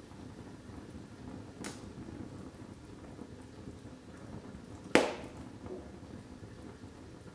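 Wood fire of split logs burning in a fireplace: a steady low rustle of flame with light crackling, a small pop about a second and a half in, and one loud, sharp pop about five seconds in.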